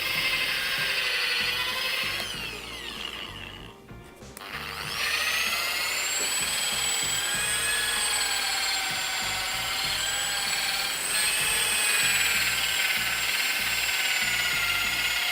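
Electric drill spinning a homemade buffing pad against motorcycle plastic, running with a steady whine. About two seconds in it winds down almost to a stop, then speeds back up about five seconds in and runs on steadily.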